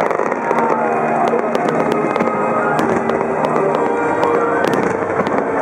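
Starmine fireworks barrage: aerial shells bursting and crackling in rapid, continuous succession, with many sharp reports close together.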